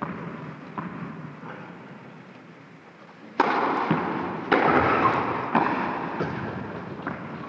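Tennis rally on an indoor court: a few soft knocks, then from about three seconds in, loud racket strikes on the ball roughly once a second, each ringing on in the hall's echo.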